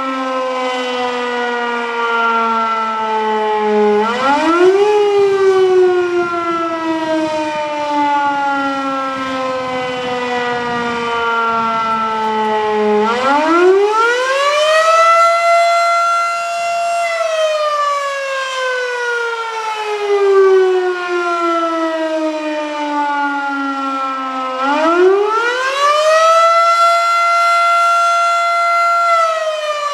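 Federal Signal Model 7 rotating fire siren sounding a short attack cycle: its pitch winds up, holds at the top and slowly falls away, over and over. Three rises in this stretch: the first drops straight back, the next two hold at the top for about three seconds each. Incredibly loud.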